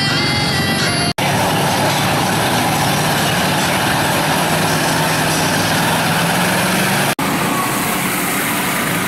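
Lifted GMC pickup mud truck's engine running steadily as it drives through a muddy water hole. There is a brief cut in the sound about a second in and again near the end.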